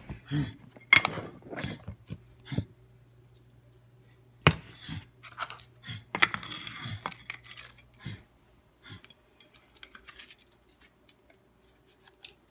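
Kitchen handling sounds: a few sharp knocks and clinks as a plate and a jar are set down and moved on the counter, with a stretch of rustling near the middle. A steady low hum runs under the first part and stops a little after halfway.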